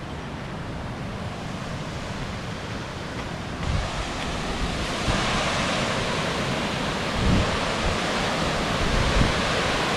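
Steady rush of a waterfall cascading over rock, mixed with wind buffeting the microphone in a few low thumps. The rush gets louder about four seconds in and again about five seconds in.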